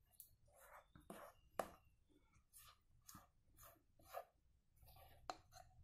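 Faint repeated scraping of a silicone spatula pushing thick cake batter off the sides of a stainless steel bowl, a stroke about every half second, with a few light clicks of the spatula against the bowl.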